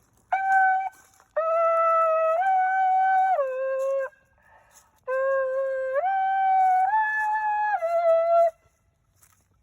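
A short tune of held notes in three phrases, each note a steady pitched tone that steps up or down to the next, with brief pauses between the phrases.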